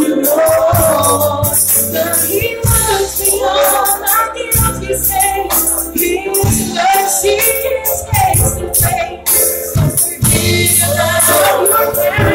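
Live gospel music: singing over a church band, with a steady bass line and a shaking tambourine.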